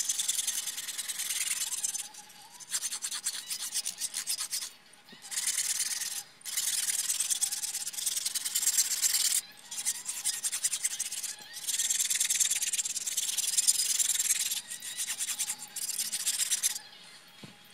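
Small metal file rasping on the cast-iron engine block, quick back-and-forth strokes in runs of a second or two with short pauses. The edges of the deck holes are being deburred, rounded off so sharp points don't start stress cracks.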